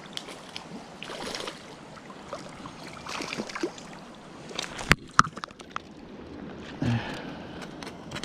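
Water splashing in irregular bursts as a hooked rainbow trout is brought in on light spinning tackle, over the steady rush of the river. Two sharp knocks come about five seconds in.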